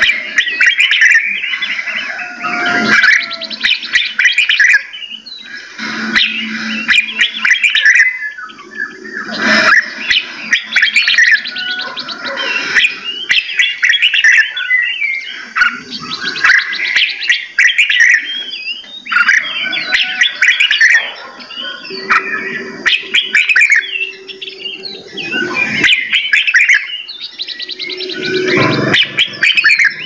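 Several caged songbirds singing and chirping together in a dense, continuous chorus of quick chirps and whistled phrases that overlap one another.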